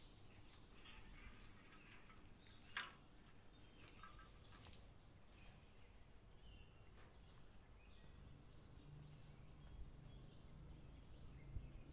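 Near silence: faint outdoor ambience with scattered soft bird chirps and a single sharp click about three seconds in.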